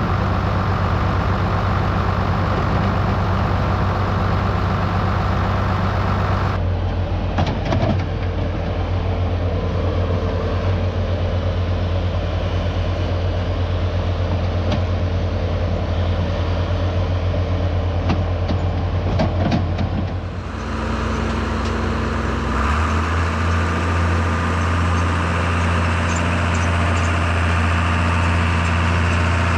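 Diesel engines of farm machinery running steadily, with a few short clanks near the middle. The engine note changes abruptly twice.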